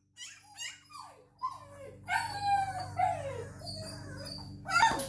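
Three-week-old Newfoundland puppies whimpering and crying: a few short falling whines, then longer, louder cries from about two seconds in, and a sharp cry near the end.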